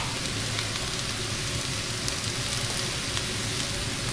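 Diced eggplant and cherry tomatoes sizzling steadily in olive oil in a frying pan, with a few faint crackles.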